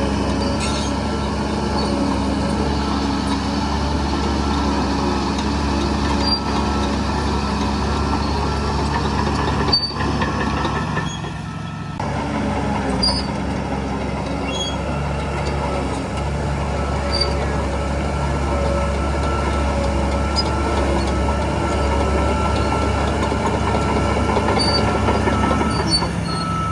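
Heavy diesel earthmoving machinery running steadily, with a short drop in level about eleven seconds in and faint high squeaks scattered throughout.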